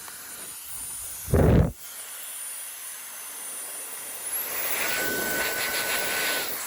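Electric air duster's 130,000 RPM brushless turbo fan running, with a thin high-pitched whine over a rush of air. A brief loud low-pitched burst comes about a second and a half in. About four seconds in, the whine climbs higher and the air rush grows louder as the motor speeds up, easing off near the end.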